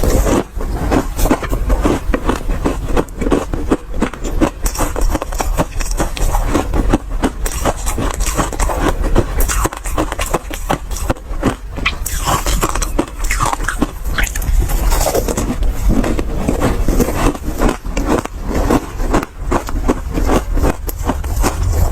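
Ice being bitten and chewed close to the microphone: an ice ball dusted with matcha powder, crunching and crackling in a dense, continuous run of small cracks.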